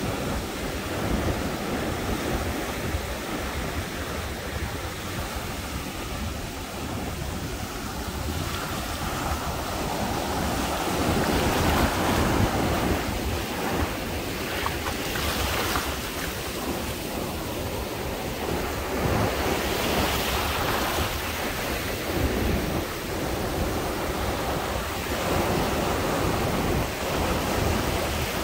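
Ocean surf breaking and washing up over the sand, swelling louder and fading again as each wave comes in, with wind rumbling on the microphone.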